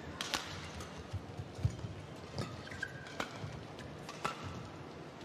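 Badminton rally: sharp cracks of rackets striking the shuttlecock, about one every second, with a brief squeak of shoes on the court surface.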